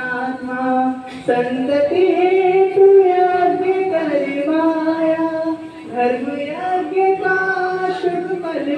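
A man singing a Ramayan bhajan solo into a microphone through a loudspeaker, unaccompanied, with long held notes that slide between pitches.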